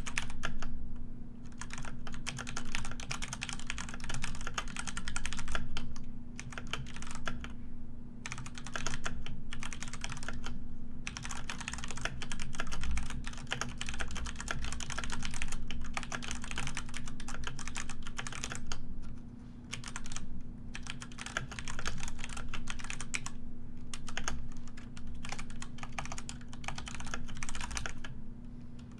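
Computer keyboard being typed on quickly, dense runs of key clicks broken every few seconds by brief pauses. A steady low hum runs underneath.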